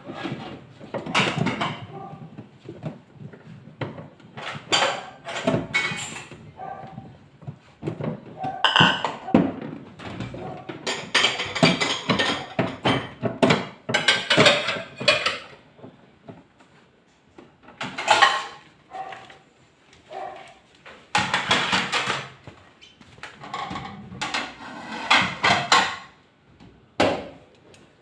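Irregular knocks, clicks and clattering from hands-on work on refrigerator parts, coming in clusters with short pauses.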